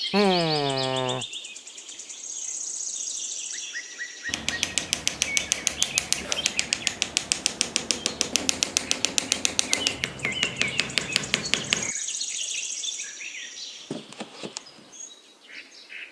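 Birds chirping and twittering, with a short falling tone in the first second. From about four seconds in to about twelve, a fast, even run of strokes, about eight a second, is louder than the birds.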